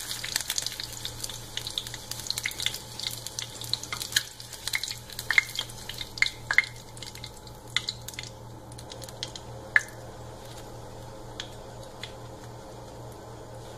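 Hot oil sizzling and crackling in a small nonstick pan as fried boiled eggs are lifted out with a spatula, with scattered sharp pops and clicks. The sizzle dies down about eight seconds in, leaving only occasional faint clicks.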